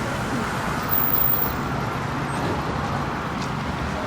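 Steady background noise of road traffic, a little louder about a second in.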